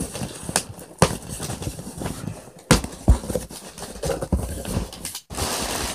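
Cardboard shipping box being opened by hand: flaps scraping and rubbing, with several sharp knocks, then a steady rasping noise near the end.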